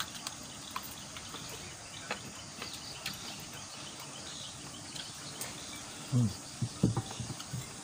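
Night insects such as crickets chirring steadily, with scattered faint clicks of spoons and bowls from people eating. A couple of short low voice sounds come in near the end.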